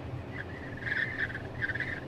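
Wind whistling at the Tesla Model X's passenger window at highway speed: a wavering, high whistle that swells in about half a second in and peaks near the end, over a steady road rumble in the cabin. The whistle is a fault that needed a service visit to fix.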